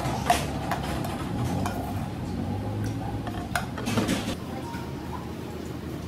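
Spoon clinking and scraping against a bowl, with a scatter of sharp clinks that is loudest about a third of a second in and again around four seconds in, then quieter.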